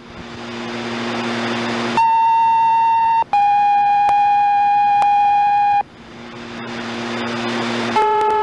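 Fire dispatch radio two-tone sequential paging tones alerting stations: open-channel hiss, then a short steady tone about two seconds in, followed straight away by a longer, slightly lower tone lasting about two and a half seconds. After more hiss, the next tone sequence begins near the end.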